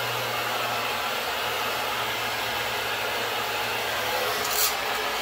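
Handheld hair dryer running steadily, a rush of air with a low motor hum, blowing down a section of hair as it is brushed smooth.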